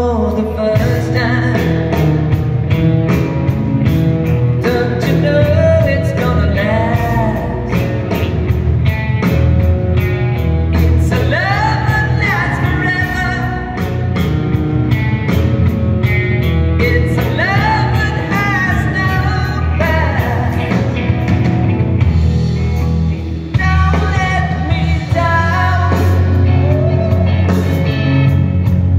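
Live rock band playing: electric guitars and a drum kit over a low, steady bass line, with a sung vocal melody. The music briefly drops in level about three-quarters of the way through, then carries on.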